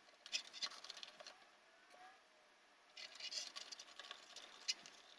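Faint clicks and scratches of a small screwdriver turning screws into the optical drive bracket of a 2009 Mac Mini, in two spells with a pause between.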